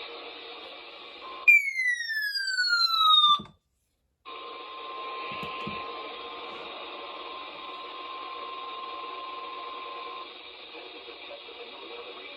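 Hiss and static of a weather radio receiver between broadcasts. About one and a half seconds in, a loud tone glides steadily downward for about two seconds, and then the sound cuts out completely for under a second. When the static returns, a faint steady tone sits under it for about six seconds.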